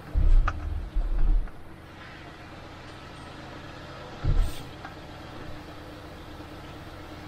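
Car interior noise while driving slowly: a steady low hum from engine and tyres. Several heavy low thumps come in the first second and a half, and one more about four seconds in.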